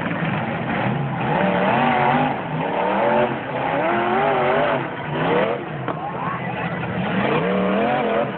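Demolition-derby pickup truck engines revving hard, their pitch wavering and sweeping up and down several times, with a steep rise about five seconds in. A steady din of crowd noise lies underneath.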